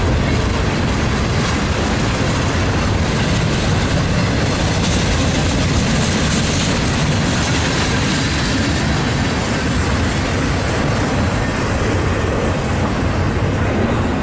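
A train rolling past, a steady loud noise of wheels on the rails; no horn sounds.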